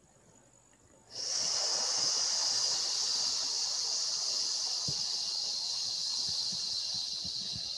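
A person breathing out in one long hissed "sss" as a qigong exhalation. It starts suddenly about a second in and slowly fades.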